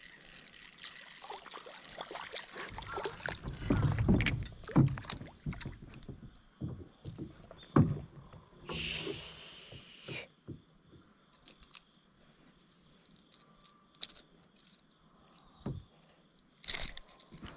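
Water splashing and knocking against a small inflatable boat as a hooked small largemouth bass is played alongside and landed. The loudest splashes and knocks come about four seconds in and again near eight seconds, followed by a short burst of splashing; after that only faint scattered clicks.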